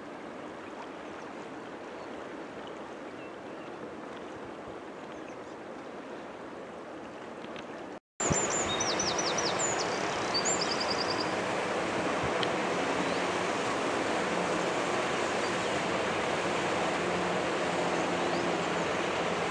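A fast-flowing river rushing steadily, its current strong. About 8 seconds in, after a brief break, a louder steady rush takes over, with a few quick high bird chirps just after the break.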